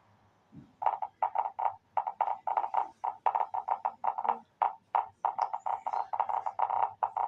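A rapid run of short, croak-like pulses, about four or five a second, starting after a brief pause near the start.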